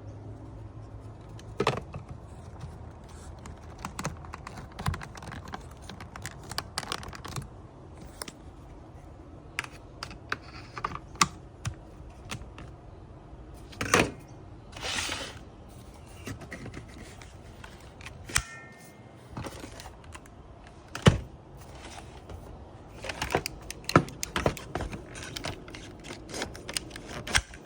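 Plastic parts of a Dyson stick vacuum clicking and knocking as they are handled and fitted together during reassembly, irregular sharp clicks with a few louder knocks.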